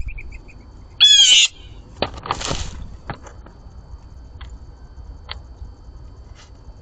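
A blue jay gives one loud, harsh call about a second in, lasting about half a second. A short, noisy rustle follows a second later, then a few light clicks.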